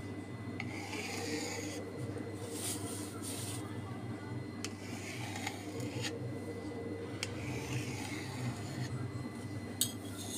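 Knife cutting through soft steamed yogurt pudding and scraping along the plate beneath, in several short strokes, over a low steady hum.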